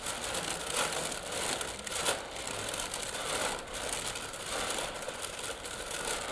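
A person breathing hard and sobbing into her hands during a panic attack: an uneven, noisy rush of breaths.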